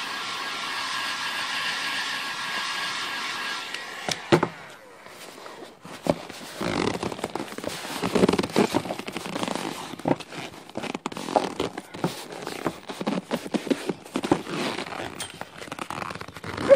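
Hot-air heat gun blowing steadily, used to soften vinyl upholstery, then switched off about four seconds in. After that come irregular crackling, scraping and rubbing as hands stretch and press the warmed vinyl over the motorcycle seat's foam.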